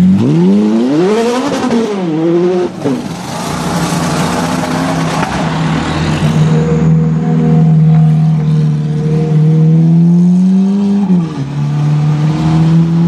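Ferrari 430's 4.3-litre V8 revving: two sharp rises and falls in pitch in the first three seconds, then a long steady note that slowly climbs as the car pulls, dropping off about eleven seconds in and settling to a lower steady note.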